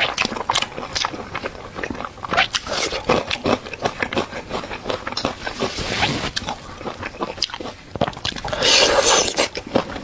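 Close-up eating sounds: a person biting and chewing food, with many quick wet clicks and smacks. Two longer, hissier scraping stretches come around the middle and near the end.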